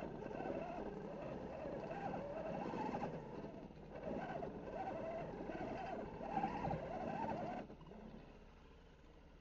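Electric motor and gearbox of an Axial SCX10 RC scale crawler whining as it crawls over rocks, the pitch rising and falling with the throttle, then stopping about three-quarters of the way through.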